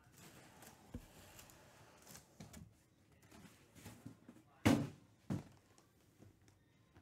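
Sealed cardboard card boxes being handled on a table: faint rustling and light knocks, with two louder thumps about half a second apart, two-thirds of the way through.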